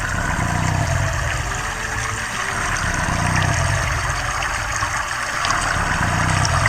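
Sound effect from a children's sound book: a steady, loud rushing noise, water-like, over a low rumble.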